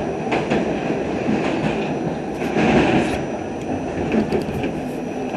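R68 subway car running on the track, heard from inside the car: a steady rumble of wheels on rail with scattered clicks over the rail joints. It swells louder for a moment about halfway through.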